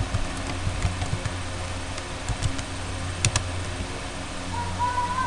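Computer keyboard typing: scattered key clicks, with two sharper clicks about three seconds in, over a steady low hum.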